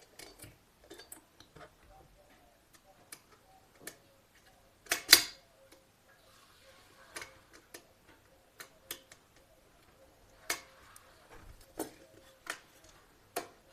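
Scattered clicks and small knocks of a screwdriver and wire being worked at the screw terminals of an electrical switch and socket board, with one loud knock about five seconds in.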